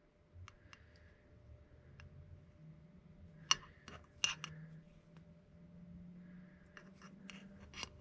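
Metal fork clicking and scraping against an amber glass candle jar as it is dipped into melted wax, a few scattered light ticks with a small cluster in the middle and another near the end.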